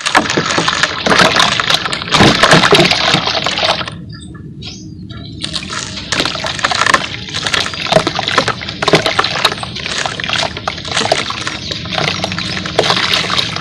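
Wet charcoal paste in a bowl squelching and crackling with many quick clicks as it is worked, easing off briefly about four seconds in before going on.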